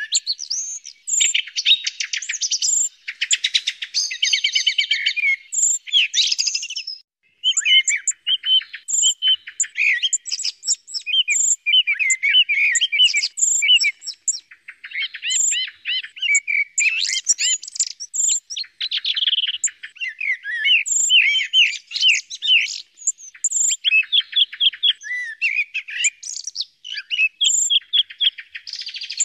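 Songs of common blackbird and song thrush from a call track for electronic bird callers: a dense run of quick, repeated whistled phrases and trills, with a brief pause about seven seconds in.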